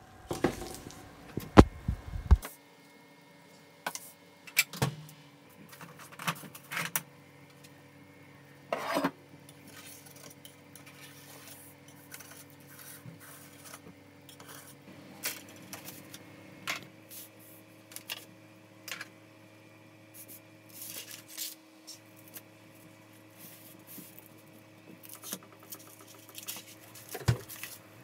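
Metal springform cake tins and kitchen utensils being handled: scattered clinks and knocks as the tins are set down and worked around with a spatula, the sharpest in the first two seconds and again near the end. A faint steady hum underneath.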